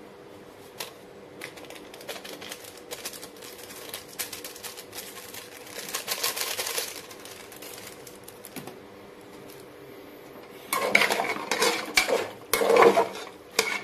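Light rustling and small taps as garam masala is shaken and squeezed out of a sachet into the pot. From about 11 seconds in, a wooden spatula stirs the thick chicken masala, knocking and scraping irregularly against the aluminium pressure cooker.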